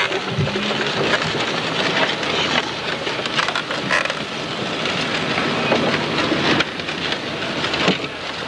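Clattering and knocking of field gun drill gear: a wooden-spoked gun carriage, timber sheerlegs and metal fittings, heard as a stream of irregular sharp knocks over a steady rushing noise.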